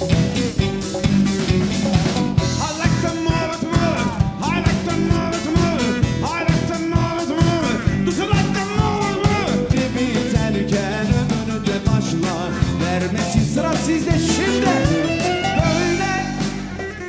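Live Turkish band music: congas, electric bass and drum kit keep a steady beat under a lead melody that bends and slides in pitch.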